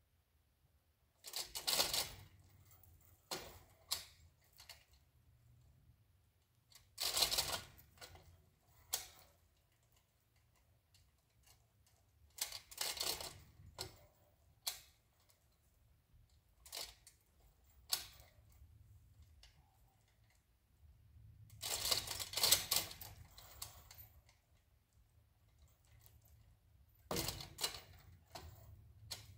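A 2-ton chain fall being worked by hand: its hand chain clatters and the hoist ratchets in short spells about a second long, five louder spells with lighter single clicks between, as it takes up tension on the line to the tree.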